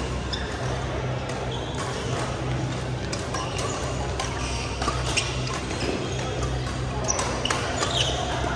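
Badminton rally: sharp clicks of rackets striking the shuttlecock, spaced a second or two apart, and short squeaks of shoes on the court floor near the end, over a steady low hum and background chatter in a large hall.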